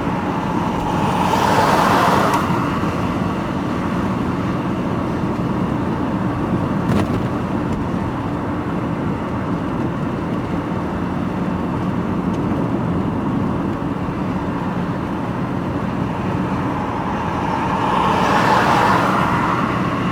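A van's engine and road noise from inside the cab while driving, a steady drone. It swells louder twice, about two seconds in and again near the end, as other traffic goes by.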